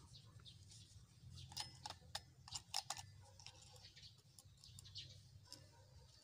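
Near silence: faint scattered light ticks and clicks over a low steady hum.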